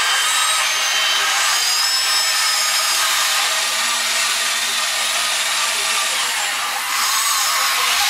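Small electric gear motors of a radio-controlled toy cable backhoe whining as it swings its boom and moves the bucket over a dump truck, with high whines that shift in pitch as the motors speed up and slow down.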